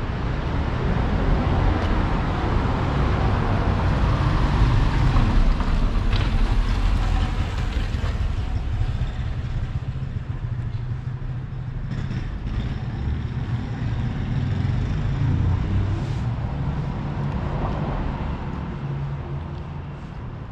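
Street traffic: motor vehicles driving past close by with a low engine and tyre rumble, swelling about a quarter of the way in and again past the middle, then fading near the end.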